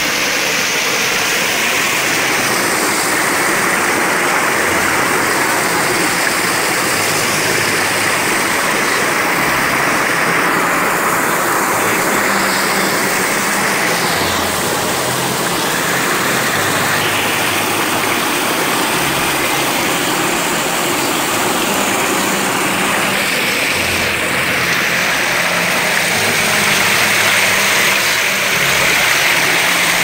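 Small waterfall pouring over rocks into a river pool: a loud, steady rush of falling and splashing water.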